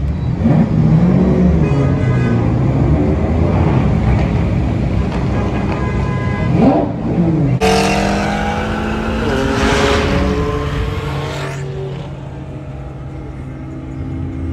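Lamborghini Aventador SVJ's V12 engine running and revving, with a quick rev blip about seven seconds in. Then cars accelerating hard at speed, engine notes climbing under a loud rush, which settles to a steady cruise near the end.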